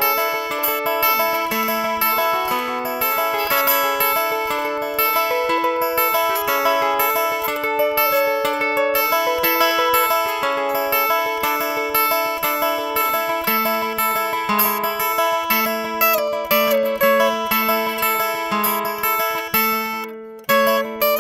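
Acoustic guitar instrumental: a quick, steady stream of picked notes over a moving bass line, breaking off for a moment about a second before the end and then carrying on.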